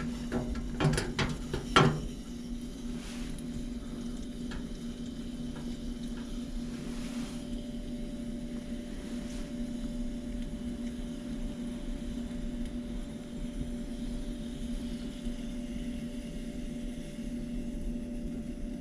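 Steady low rush of an MSR Firefly liquid-fuel stove's priming flame burning, with a constant low hum underneath. A few sharp knocks and clicks in the first two seconds from the fuel bottle being handled.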